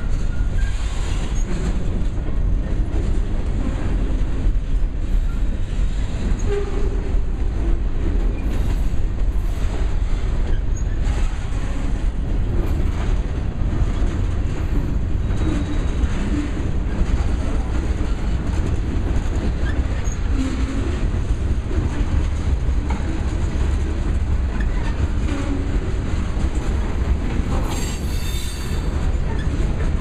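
Freight cars (covered hoppers and boxcars) rolling slowly past: a steady low rumble of steel wheels on the rails, with scattered clicks and brief wheel squeals.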